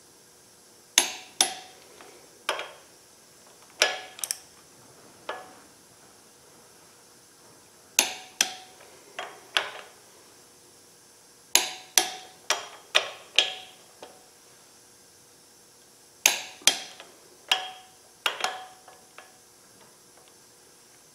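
Click-type torque wrench clicking as small block Chevy flywheel bolts reach the final 60 ft-lb torque: sharp metallic clicks with a short ring, in clusters a few seconds apart, often two in quick succession.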